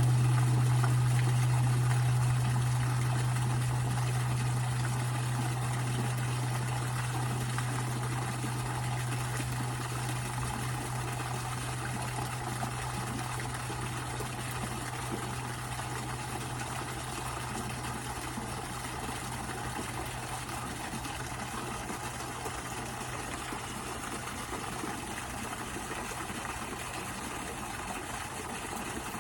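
Waterfall splashing steadily, with a strong low hum underneath that slowly dies away over the first twenty seconds or so.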